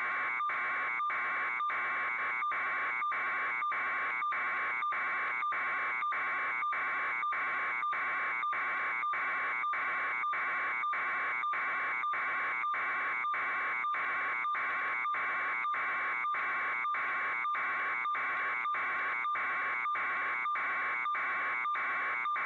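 Electronic alarm beeping steadily, about two high-pitched beeps a second, without pause or change.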